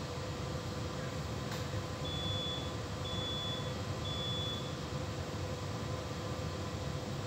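Steady low machinery hum with a faint steady tone, and three short high electronic beeps about a second apart, starting about two seconds in.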